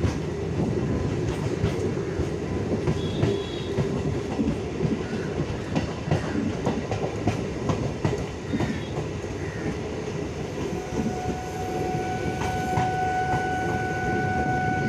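Local passenger train running on the track, a steady rumble with the clickety-clack of its wheels over the rail joints. A steady high tone joins in near the end.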